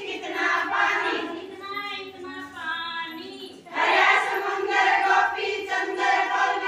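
A group of women singing together in unison, as a circle song during a game. The voices drop off briefly a little past halfway, then come back in louder.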